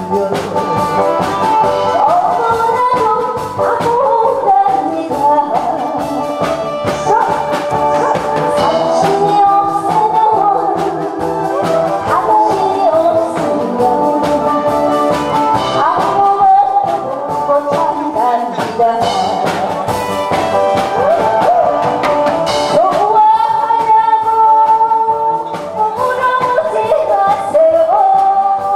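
A woman singing into a handheld microphone, her voice gliding and wavering on long notes, over instrumental accompaniment with a steady beat.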